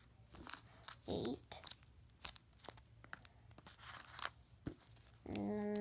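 Crinkly rustles and crackles of foam-stuffed paper squishies being picked up, moved and squeezed by hand. A short steady pitched tone is held near the end.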